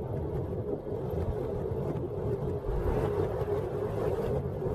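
A vehicle's motor running steadily while under way, with wind noise on the microphone.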